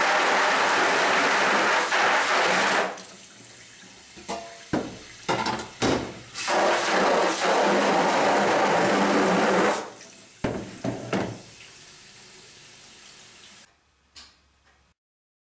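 Water jet from a hose spray nozzle hissing against a screen-printing screen, washing the unexposed emulsion out of the stencil. The spray runs steadily, breaks into short bursts around three to six seconds in, runs steadily again, then comes in a few short bursts and stops about eleven seconds in.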